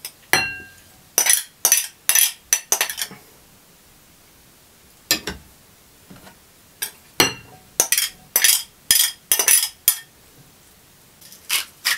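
Metal spoon and glass bowls clinking and scraping as vegetables are scooped from one glass bowl into another, in short clusters of clinks with a pause in the middle. One early knock leaves the glass briefly ringing.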